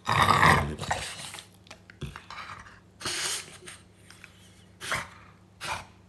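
French bulldog vocalizing: one loud call in the first second, then three shorter ones about three, five and five and a half seconds in.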